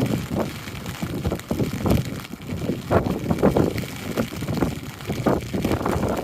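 Strong coastal wind gusting and buffeting the microphone, a rumbling rush that swells and drops irregularly.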